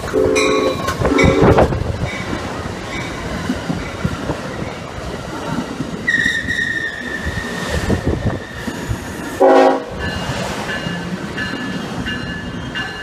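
Amtrak passenger train led by a cab control car (a converted F40PH 'cabbage' car) passing close by: two short horn blasts as it comes in, then the rumble and clatter of the coaches rolling past. From about six seconds in there is a high steady wheel squeal, and a little later another short, loud blast.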